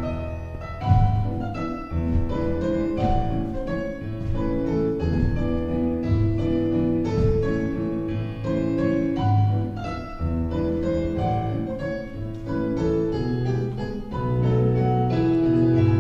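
Solo piano playing classical ballet accompaniment, notes and chords struck in a regular rhythm.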